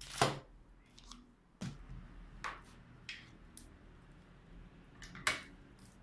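Scattered clicks and knocks of hard parts being handled as case fans are set against an AIO cooler's radiator, about six in all. The loudest comes near the start and another strong one about five seconds in.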